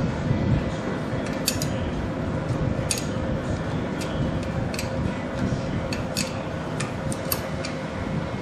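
Scattered sharp metallic clicks and taps of a hand wrench working the carburetor boot mounting nuts on a snowmobile engine, at irregular intervals over a steady low hum.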